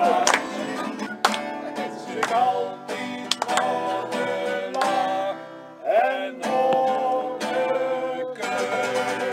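Acoustic guitar strummed in chords, with voices singing along.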